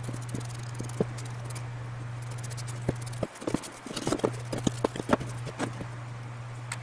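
Irregular light knocks and taps of hard objects, bunching up in the second half, over a steady low hum that drops out briefly a little after three seconds in.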